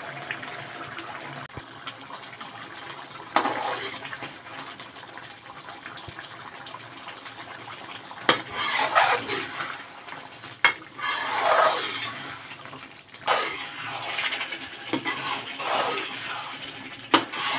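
Chicken bhuna gravy simmering in a steel kadhai, then a steel spatula stirring and scraping the thick masala around the pan from about eight seconds in, with a few sharp metal-on-metal clinks.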